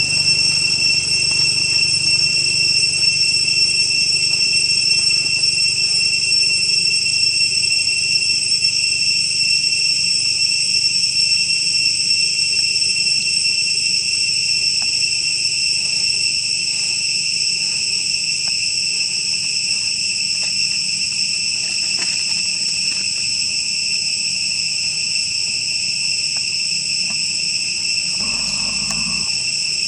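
Insects trilling in a steady, loud, high-pitched chorus that holds a constant pitch.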